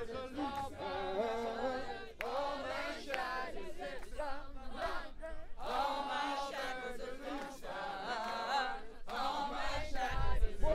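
A group of people chanting and singing a phrase together in unison, in repeated sung phrases with short breaks between them.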